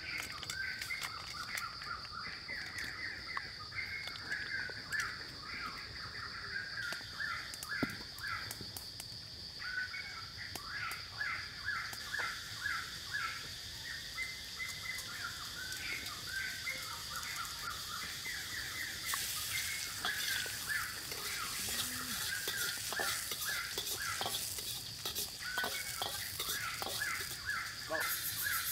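Birds chirping and chattering in quick runs of calls throughout, over a steady high-pitched insect drone. About two-thirds of the way through, a brighter steady hiss joins in, with a few light clicks scattered through.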